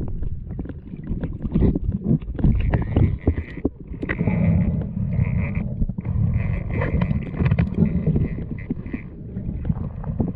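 Underwater noise picked up by a diver's camera: a low rushing rumble of moving water with scattered clicks and knocks, and a higher hiss that comes and goes through the middle.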